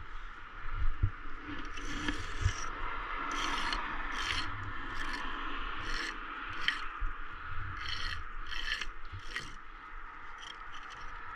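Short scraping and rubbing strokes of bricklaying work against mortar and brick, about ten at uneven spacing, with a few soft knocks in the first couple of seconds.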